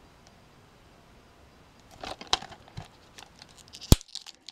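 Utility knife slitting the plastic shrink wrap along the edge of a DVD case, the wrap crinkling and crackling in irregular bursts from about two seconds in, with one sharp click near the end.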